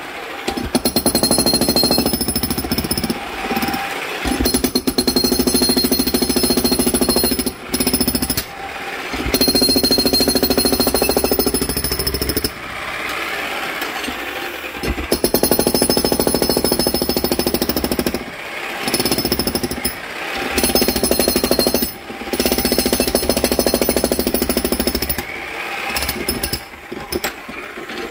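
Makita HM1812 70 lb electric breaker hammer pounding a concrete slab in rapid blows. It runs in bursts with brief pauses between them, and goes through a quieter stretch about halfway through.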